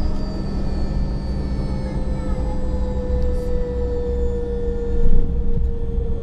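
Cockpit noise of a Learjet 45 rolling out on the runway: the steady whine of its turbofan engines slowly falling in pitch over a low rumble. A short louder bump comes about five seconds in.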